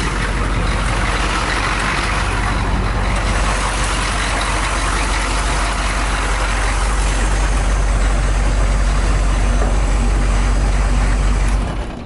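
1991 AM General M998 Humvee's 6.2-litre V8 diesel idling steadily. Near the end it is switched off, and the engine sound dies away within about a second.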